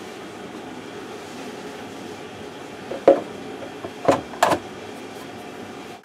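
Plastic filter cover being fitted into the bottom of a Maytag dishwasher tub: three sharp plastic knocks about three, four and four and a half seconds in, over a steady background noise.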